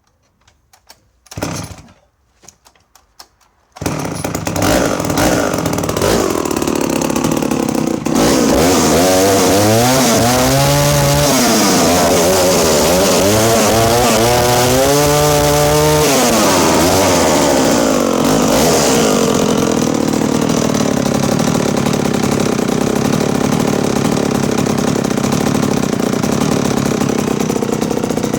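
Danarm 125 Mk II 125cc two-stroke chainsaw pulled over with a few short knocks, the engine catching about four seconds in. It is revved up and down a few times, then runs at a steady speed.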